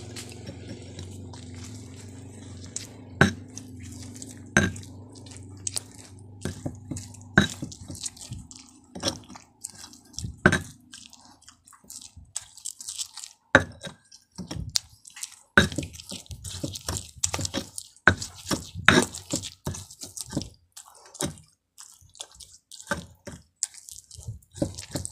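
Stone pestle (ulekan) crushing and grinding boiled chillies, tomatoes, shallots and shrimp paste in a stone mortar (cobek) to make sambal. It gives irregular sharp knocks of stone on stone.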